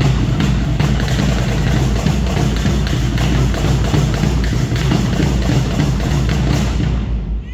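Loud, bass-heavy music with a drum beat, which cuts off abruptly near the end.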